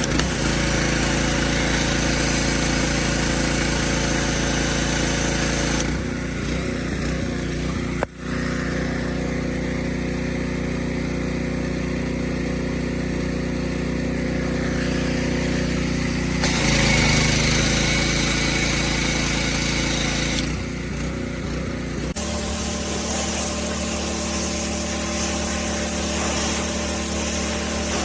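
Pressure washer running steadily, its pitch and tone shifting suddenly a few times, with a brief dropout about eight seconds in.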